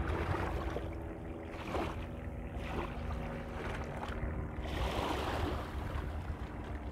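Small river waves lapping and washing up a sloping concrete shore, swelling and falling back every second or two.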